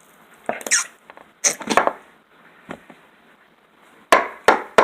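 Slime being squeezed and pushed into a plastic container: a few short wet squelches with squeaky air-pocket sounds, then several sharp pops near the end.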